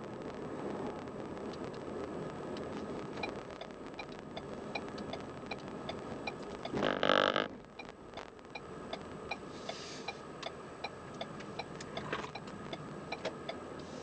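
Car's turn-signal indicator clicking steadily, a few clicks a second, over tyre and road noise inside the moving car. The clicking starts about three seconds in and stops near the end, and a brief loud burst of noise comes about seven seconds in.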